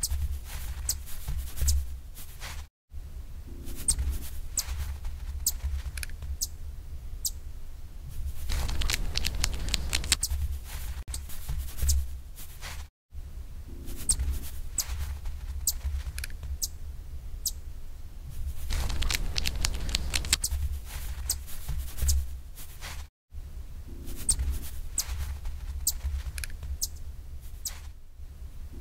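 Looped chipmunk sound effect: quick sharp clicks and patter over a low hum. The same sequence repeats about every ten seconds, with a brief drop to silence each time the loop restarts.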